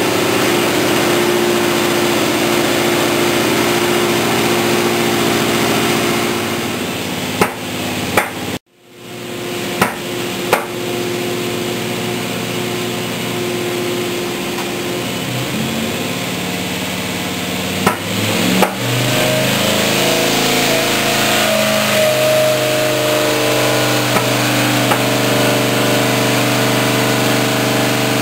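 383 stroker Holden V8 with a Holley four-barrel carburettor running steadily, with a short break about eight and a half seconds in and a few sharp clicks. About 19 seconds in its speed steps up and holds steady at higher revs.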